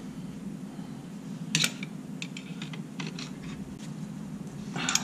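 Light metallic clicks and taps from the dogbone mount and its bolt being worked into line against the subframe, with one sharper knock about a second and a half in and a cluster of clicks near the end, over a steady low hum.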